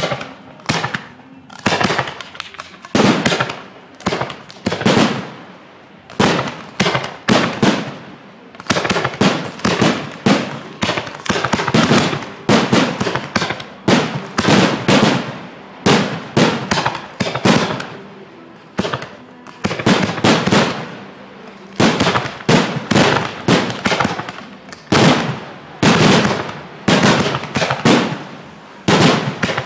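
Fireworks display: a continuous barrage of aerial shells bursting, sharp loud bangs about one to two a second, each trailing off briefly before the next.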